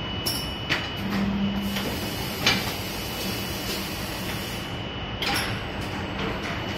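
Megabound inline casing-in and joint-forming press running in production: a steady mechanical hum and high whine with repeated short clacks and two brief hissing bursts.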